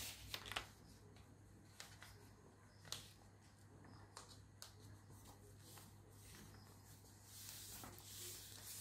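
A sheet of paper being folded in half and creased by hand: faint rustling with a few soft crackles and taps.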